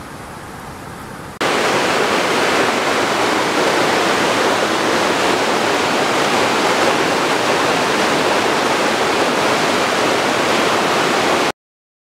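Rushing water of a stream cascading over rocks, a loud, even rush. It cuts in suddenly about a second and a half in over a fainter wash of noise, and stops abruptly near the end.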